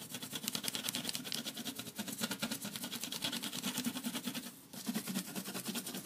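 Pencil rubbing back and forth over paper laid on a metal compressor nameplate, a fast run of scratchy strokes, several a second, with a brief break about four and a half seconds in.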